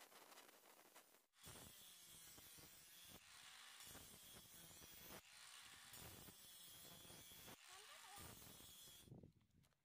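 Electric angle grinder with a flap disc grinding a steel knife blade, faint and steady with a high whine, broken by a few short gaps; it stops near the end.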